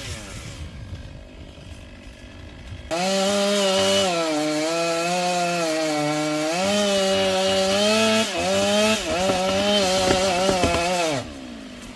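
Stihl MS 500i chainsaw, a two-stroke. It runs quietly for about three seconds, then is throttled up and held high for about eight seconds, cutting wood, with its pitch sagging briefly a few times under load. It drops back down near the end.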